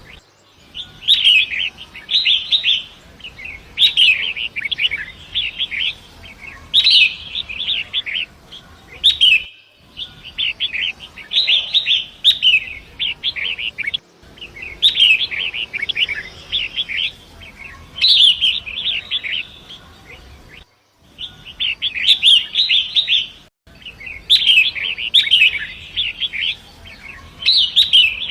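Long-tailed shrike (pentet) singing: repeated bursts of fast, jagged chattering notes, a new phrase every second or two, over a faint steady background hiss. The sound cuts out suddenly for a moment a few times, where the looped recording is spliced.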